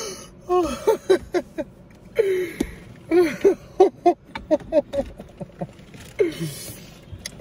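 A person's voice talking quickly in short syllables, words the recogniser did not catch.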